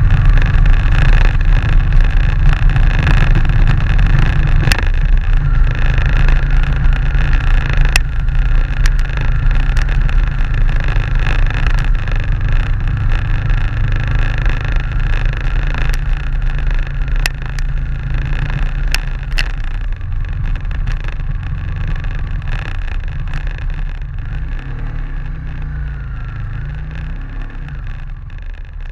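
Motorcycle ridden slowly along a loose stone track, its engine running steadily under a heavy low rumble, with a few sharp ticks along the way. The whole sound gradually dies down toward the end.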